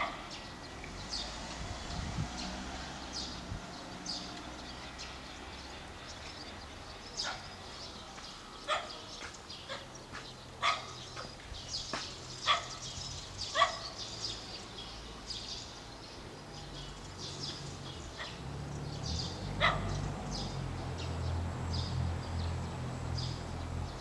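A dog barking several times at uneven intervals, mostly in the middle of the stretch, over steady background noise. A low rumble builds near the end.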